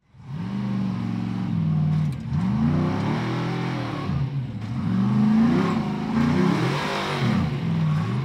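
Off-road race car's engine revving up and down over and over, with the throttle worked in short surges as it crawls up a boulder hill.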